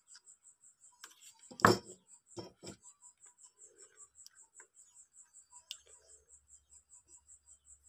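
Small parts being handled on a workbench: a sharp knock about a second and a half in, then two lighter knocks and, later, a small click as a DC barrel connector and its wires are worked by hand. A faint, even high ticking about five times a second runs throughout.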